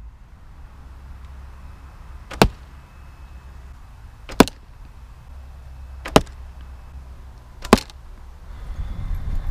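Four arrows striking a stretch-wrapped box target one after another, a sharp thud roughly every two seconds, each hit with a brief rush of flight just before it. A low steady rumble lies underneath.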